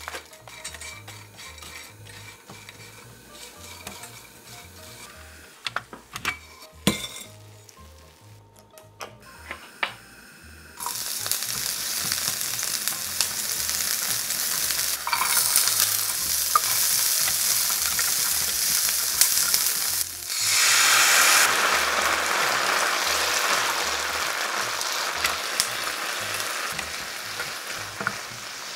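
Scattered light clinks and taps of utensils on dishes, then, about a third of the way in, food goes into hot oil in a frying pan and sizzles loudly all at once. A second, louder surge of sizzling comes about two-thirds of the way through, then the frying settles and slowly fades.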